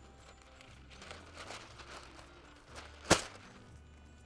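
Baking paper rustling as a sheet is pulled off the roll and handled, with one sharp snap about three seconds in, the loudest sound here.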